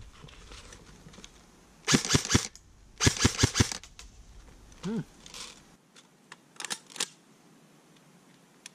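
A King Arms Black Rain Ordnance M4-style airsoft electric gun (AEG) firing two short, rapid strings of four or five shots each, about a second apart, showing its trigger response on a 7.4 V battery. A few fainter clicks follow.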